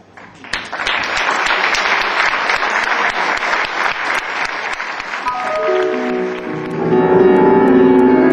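Audience applauding, then dying away as piano music on a stage keyboard begins about five seconds in.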